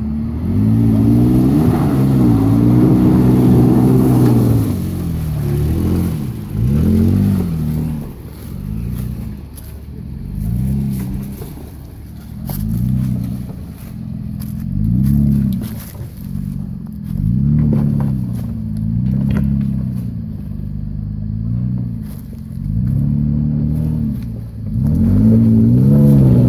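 Toyota Tacoma pickup's engine revving up and easing off over and over, about every second or two, as the truck crawls up over rocks. A few sharp knocks come partway through.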